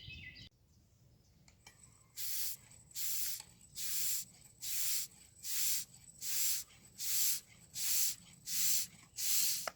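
Spray paint hissing out in about ten short, evenly spaced bursts, starting about two seconds in: light passes of paint.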